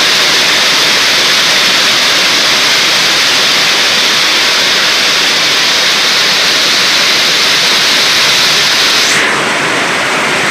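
Heavy storm rain, a loud steady hiss, with wind. The top of the hiss cuts away abruptly about nine seconds in.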